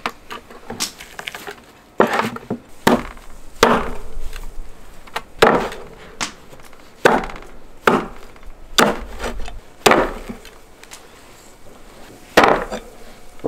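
Meat cleaver chopping through cooked lamb spine bones on a wooden chopping board: irregular sharp chops, often in quick pairs, with a short pause before a last loud pair near the end.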